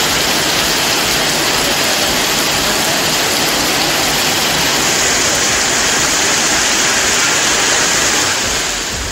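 Heavy rain pouring down onto a flooded street: a dense, steady hiss of downpour splashing on wet pavement and parked vehicles, easing slightly near the end.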